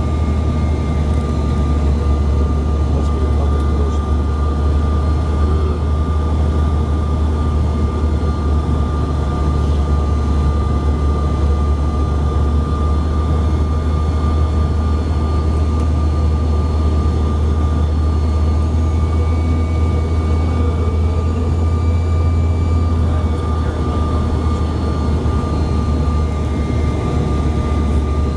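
Cabin noise of a Bombardier CRJ-700 regional jet in flight: its rear-mounted GE CF34 turbofans and the airflow give a deep, steady rumble with a steady high whine over it, holding level without any change in power.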